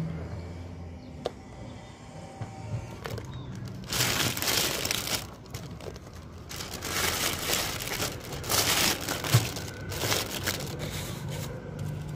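Thin plastic carry bag rustling and crinkling as plastic takeaway cups are set into it, in bursts starting about four seconds in and again over the middle and latter part.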